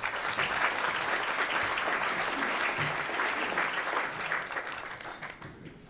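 Audience applauding, a steady clapping that fades away over the last second or so.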